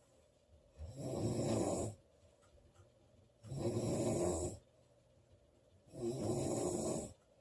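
A woman snoring: three snores, each about a second long and about two and a half seconds apart, with quiet gaps between them.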